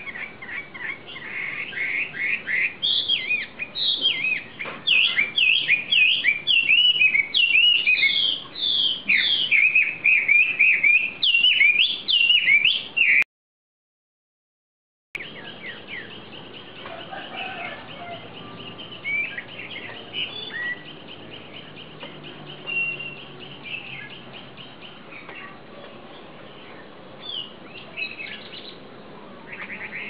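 Caged wambi songbird singing loud, rapid runs of chirping notes for about thirteen seconds. The sound then cuts out completely for about two seconds, and only fainter, scattered chirps follow, with a few louder ones near the end.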